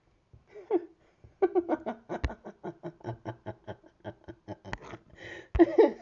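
A person laughing in a quick run of short bursts, with a few sharp clicks among them.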